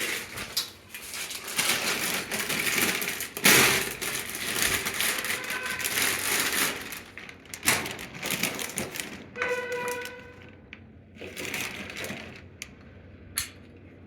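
Handling noise of tools and metal fittings: irregular scraping, rustling and clicks, with a brief pitched ringing tone about ten seconds in, then quieter with a few sharp clicks near the end.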